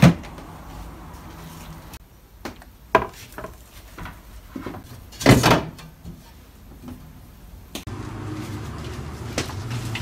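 Plastic drawers and shelves of a new Iris Ohyama refrigerator being handled: a sharp knock at the start, a few lighter knocks about three seconds in, and a longer, louder one about five seconds in as a part slides and bumps into place.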